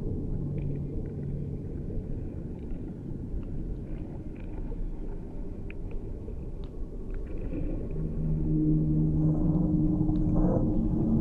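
Layered, processed field-recording soundscape: a steady low rumble with faint scattered ticks, joined about eight seconds in by sustained low drone tones as it grows louder.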